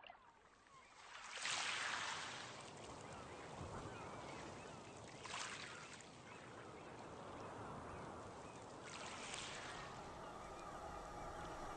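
Seashore ambience: water washing against rock in three slow swells, with many waterbirds calling faintly. Steady tones come in near the end.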